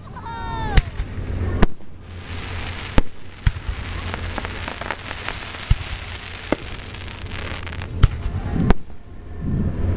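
Aerial fireworks going off: about eight sharp bangs of bursting shells, irregularly spaced. A falling whistle comes right at the start, and dense crackling runs through the middle of the stretch.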